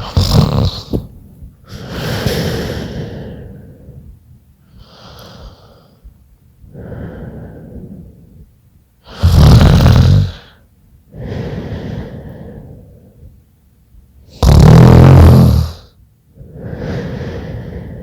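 A sleeping person snoring while ill: three loud, low rattling snores (at the start, about nine seconds in and about fifteen seconds in), with softer, breathy breaths in between.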